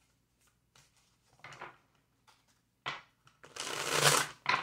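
Tarot cards being shuffled by hand: a few soft clicks and taps, then a quick dense flutter of cards about three and a half seconds in.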